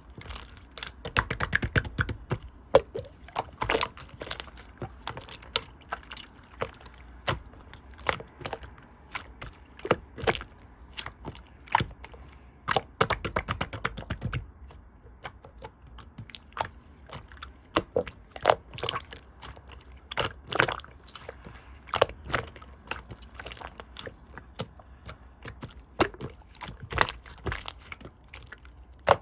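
Clear green slime being squeezed and worked by hand, giving a dense run of irregular sticky clicks and pops.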